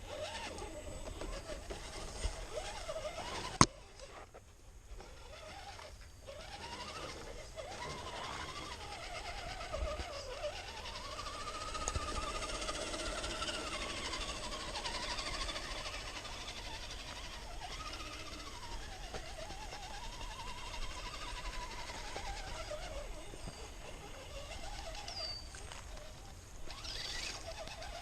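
RC scale crawler's electric motor whining, rising and falling in pitch as the throttle is worked. There is one sharp click a few seconds in, and a few short bird chirps near the end.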